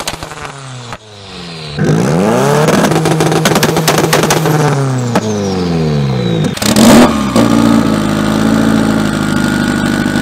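Car engine with its exhaust dumped out through a hole in the hood, revving hard. The revs climb and fall, with rapid pops and crackles from the open pipe, and one loud bang about seven seconds in. After that the engine runs on steadily.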